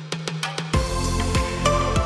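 Background pop music: a sparse stretch of quick ticking beats over a held bass note, then the full drum beat and bass come in about three quarters of a second in.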